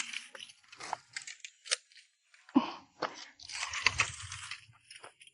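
Dry twigs and sticks being gathered for firewood, crunching and rustling irregularly with a few sharp snaps.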